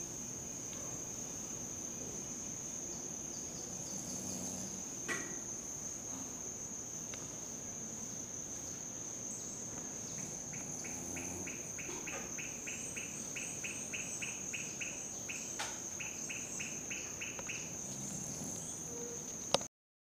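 Crickets chirping: a steady high trill throughout, joined about halfway by a second, lower chirping that pulses about three times a second for several seconds.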